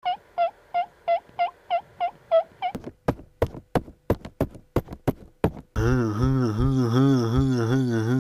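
Cartoon sound effects: about nine quick chirping notes in a row, then a run of sharp clicks, then, from near the end, a loud low buzz that wobbles in pitch.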